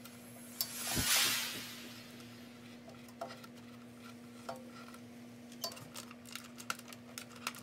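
Cables being pulled from the back of a Verizon Fios G1100 router. A swelling rustle with a thump comes about a second in, then a run of small clicks and rattles as the connectors and network plugs come out, over a faint steady hum.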